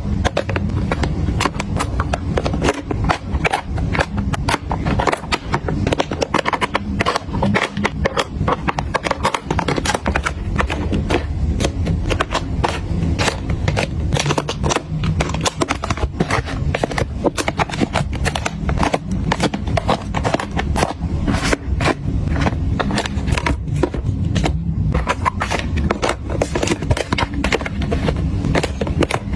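Continuous rapid clicking and clacking of small hard cosmetic packaging being handled, with many quick taps and knocks close together.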